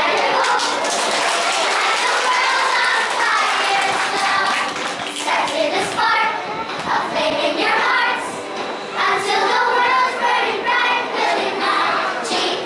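A group of young girls singing together, with hand claps mixed in.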